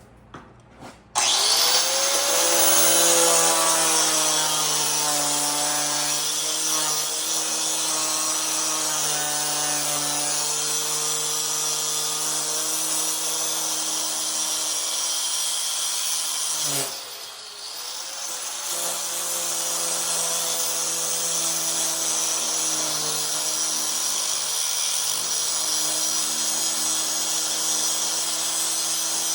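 Grinder with a cutoff wheel cutting steel horseshoes in half: a loud, steady whine with a hiss of cutting, starting about a second in. Around two-thirds of the way through it briefly drops off and picks back up.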